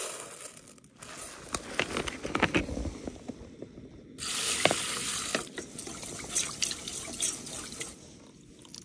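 Dry rice poured from a plastic bag into a metal pot, the grains pattering in for the first few seconds. About four seconds in, water pours in from a plastic bottle, then sloshes and trickles as the rinse water is tipped out to wash the rice.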